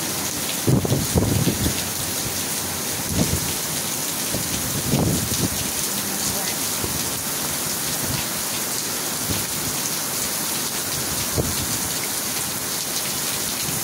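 Heavy rain pouring steadily onto pavement and plants, a constant even hiss. A few brief louder low sounds break through, about a second in and again near five seconds.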